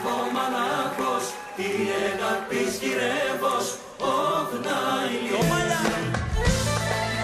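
A group of voices singing a Pontic Greek folk song in unison. About five and a half seconds in, instruments enter with low held notes under the voices.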